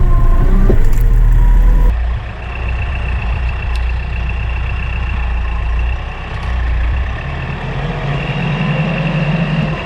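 Kioti RX7320 utility tractor's diesel engine running under loader work. About two seconds in, the sound drops abruptly to a quieter, steady engine hum with a thin high whine.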